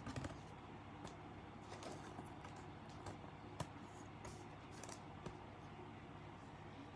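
Faint clicks and rustles of trading cards being slid and flipped by hand, a few sharp ticks scattered through, over a steady low hum.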